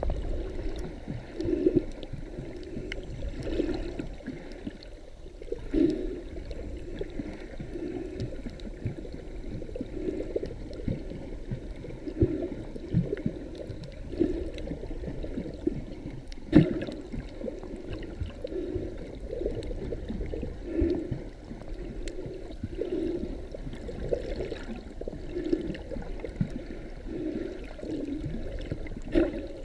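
Muffled underwater water noise heard through a submerged camera, with a soft whooshing pulse about once a second. There is a sharper knock about halfway through and another near the end.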